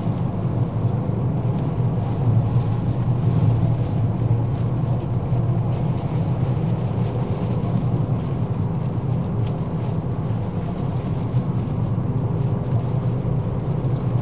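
Ford Fiesta on the move, heard from inside the cabin: a steady low drone of engine and tyre noise.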